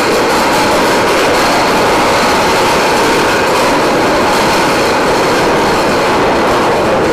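Aircraft carrier's heavy anchor chain running out over the windlass and down the hawse pipe as the anchor is let go: a loud, steady, dense clatter of iron links.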